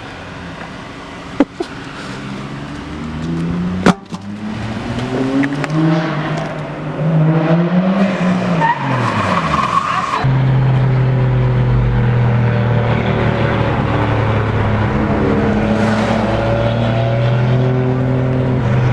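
Car engine revving up and down, its pitch rising and falling repeatedly, after two sharp clicks early on. About ten seconds in the sound changes suddenly to a steady loud drone that runs on.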